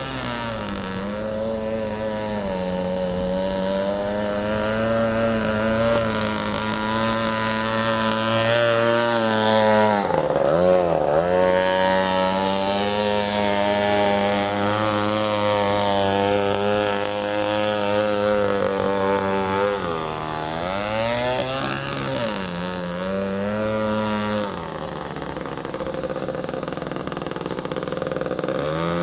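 A 21.2 cc Echo weed-eater two-stroke engine with a straight-pipe exhaust, running hard in an RC boat. Its pitch dips and climbs back about ten seconds in, and again around twenty seconds. Near the end it drops to a lower, quieter note as the boat slows.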